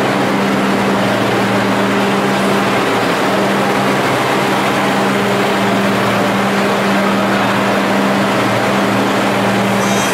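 Diesel engine of a gooseneck roll-trailer tractor running steadily as it tows a loaded 62-foot roll trailer past, with a constant low drone.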